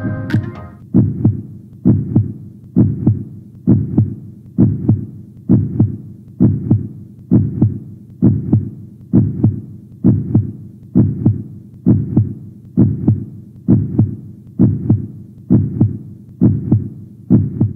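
Heartbeat sound effect: a steady, low beat about once a second.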